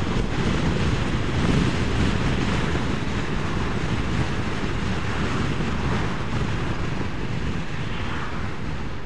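Steady rush of wind buffeting the microphone while riding a scooter at road speed, with engine and road noise underneath; it eases slightly near the end.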